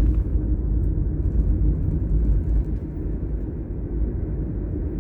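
Car interior road noise while driving: a steady low rumble of engine and tyres on the road.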